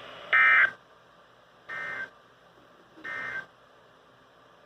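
Emergency Alert System end-of-message data tones: three short bursts of warbling digital data about 1.3 s apart, the first much louder than the other two, signalling the end of the alert.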